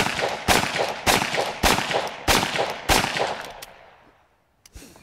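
Black powder revolver fired six times in quick succession, about one shot every 0.6 seconds, each report trailing off in an echo. The shots empty the cylinder and then stop.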